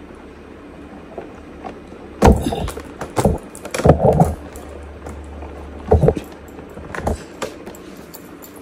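A series of loud, close knocks and bumps, about six over several seconds, with a low handling rumble between them: the phone and its stand being adjusted and knocked right at the microphone.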